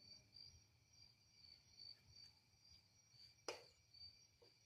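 Near silence: a faint, steady high-pitched pulsing tone in the background, with one sharp click about three and a half seconds in.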